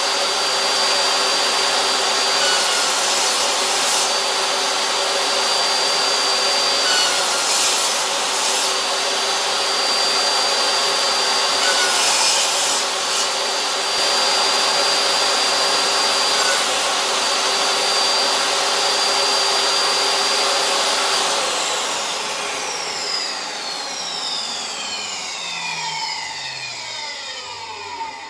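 Table saw running and cutting repeated shallow rebate passes across a bundle of hardwood Merbau decking offcuts, the whine dipping briefly with each pass as the blade takes load. About three quarters of the way in, the saw is switched off and the blade winds down with a falling whine.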